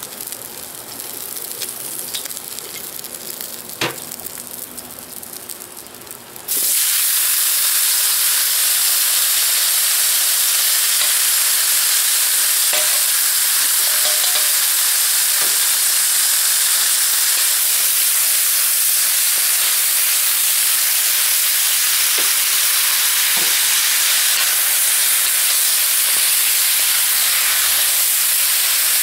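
Vegetables going into a hot, oiled cast-iron wok: a sudden loud, steady sizzle starts about six seconds in and keeps on as they are stir-fried. Before that there is a quieter hiss from the hot wok and a single knock.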